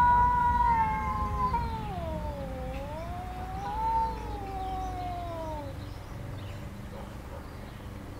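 Domestic cat yowling at a rival in a standoff: one long drawn-out yowl of about six seconds that wavers down, back up and down again in pitch before trailing off.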